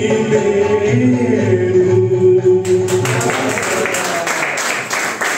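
A man singing the last held notes of a Hindi film song into a microphone over backing music. About two and a half seconds in, the music stops and the room breaks into applause.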